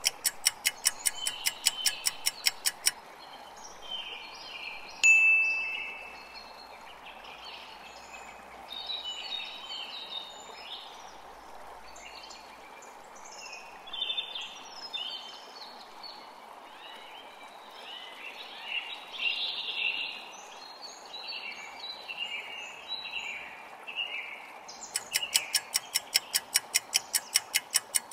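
A quiz countdown clock ticks rapidly and stops about three seconds in, and a single bright chime rings about five seconds in. Scattered birdsong follows over a steady background hiss, and the rapid ticking starts again near the end.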